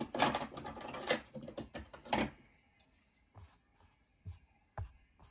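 Clicks and scrapes of a small folding knife being handled and pried apart with a plastic pry tool, with a run of sharp clicks in the first couple of seconds and then a few faint taps.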